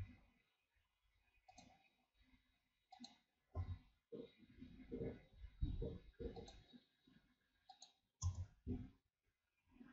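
Faint, irregular computer mouse clicks and key presses at a desk, with a cluster of low dull thuds in the middle.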